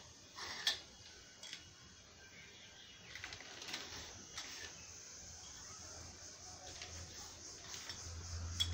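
Scattered light clinks and taps as hollow black carbon-steel wardrobe tubes and small fittings in a plastic bag are handled and the tubes laid on a tiled floor; the sharpest click comes under a second in. A low hum grows near the end.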